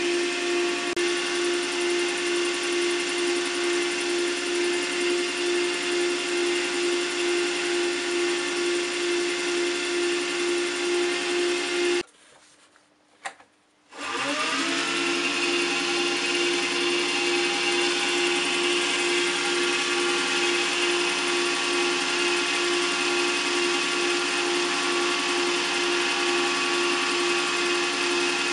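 Small electric wood lathe running at speed, its motor giving a steady hum with a slight regular pulse. About twelve seconds in it cuts off abruptly; after a short near-silent gap with a single click, it starts again and its pitch rises quickly as it spins up.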